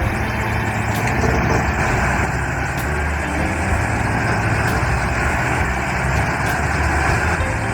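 Heavy wood-processing machine running steadily, its diesel engine giving a continuous low drone under dense mechanical noise.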